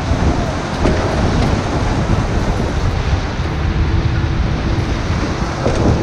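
Rushing white water of river rapids churning around a raft, loud and steady, heard close through an action camera's microphone.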